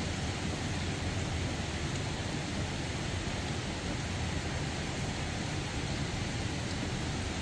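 Steady hiss of heavy rain, with a low rumble beneath it.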